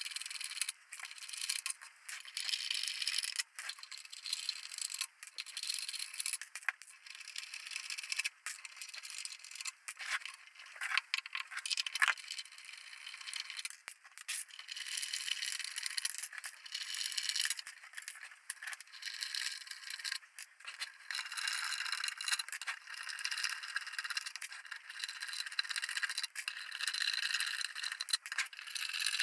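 Small steel bolts being unscrewed from an aluminium equipment cover and dropped among other bolts and washers in a lid: repeated metallic rattling, clicks and scraping.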